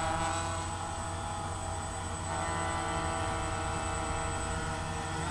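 Quadcopter's electric motors and propellers running at a near-steady throttle, a droning hum of many steady tones that shifts in pitch about two seconds in.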